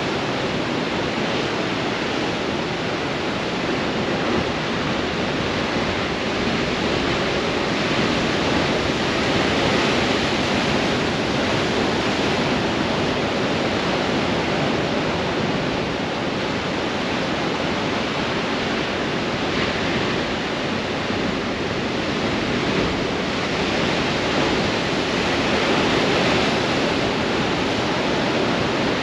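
Ocean waves breaking on rocks in a strong wind: a continuous rush of surf that swells briefly about a third of the way in and again near the end.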